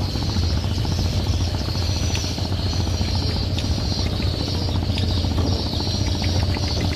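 Boat engine idling steadily: a low rumble with rapid, even firing pulses and a high whine that comes and goes.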